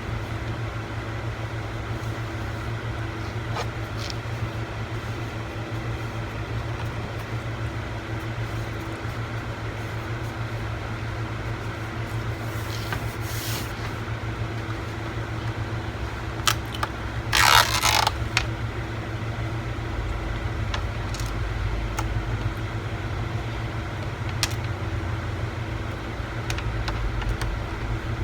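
Steady background hum with scattered small clicks as laptop parts and screws are handled during reassembly, and a brief louder scraping rustle about seventeen seconds in.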